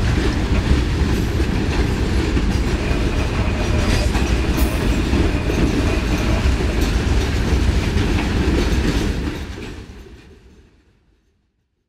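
Freight cars rolling past on jointed track, wheels clacking and rumbling steadily, with a thin high wheel squeal for a few seconds in the middle. The sound fades to silence near the end.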